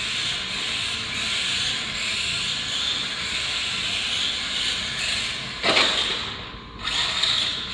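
Dromida 1/18 electric RC rally car running on a concrete floor: a steady high-pitched whine and hiss of its motor, gears and tyres. It swells suddenly and loudly about three-quarters of the way in as the car comes close, then drops away.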